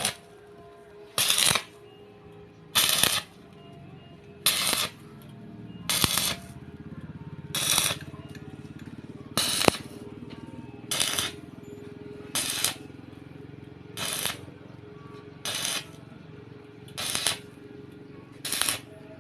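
Welding arc struck in short bursts, about a dozen half-second bursts of crackling hiss roughly every one and a half seconds, as in a row of stitch or tack welds, over a steady machine hum.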